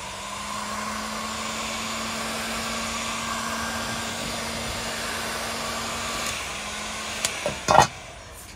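Corded heat gun running steadily, a rush of hot air over a low motor hum, heating the crankcase half to loosen the crank bearing. It stops about seven seconds in, followed by a couple of sharp knocks, the last one the loudest.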